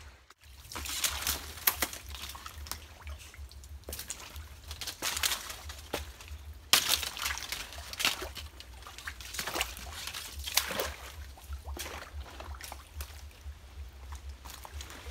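Footsteps sloshing through shallow swamp water and mud among nipa palms, with dry fallen fronds rustling and snapping as they are pushed through, in irregular bursts.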